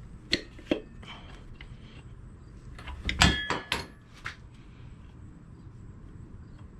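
Metal engine parts and tools being handled and set down: two sharp clicks in the first second, then a quick burst of ringing metal clinks and knocks about three seconds in.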